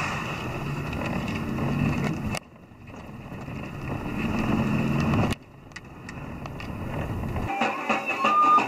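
Steady engine and road noise inside a moving vehicle, cut off suddenly twice and building back up each time. Near the end it gives way to music with high held notes.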